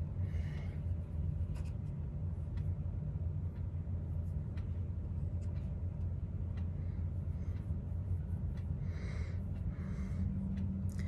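A steady low hum, with faint soft rubbing and light clicks of a fingertip picking up pressed eyeshadow and rubbing it onto the skin of the forearm.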